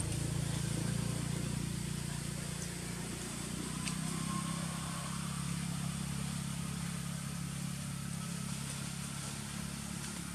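A steady low engine hum, like a motor vehicle idling, with a faint click about four seconds in.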